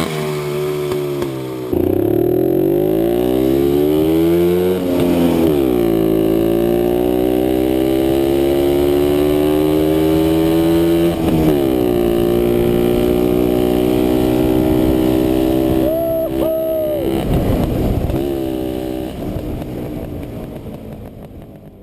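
1968 WSK M06 B1's single-cylinder two-stroke engine accelerating through the gears. The pitch climbs in each gear and drops suddenly at each of three shifts, then the sound fades away near the end. Two brief beeps come about two-thirds of the way through.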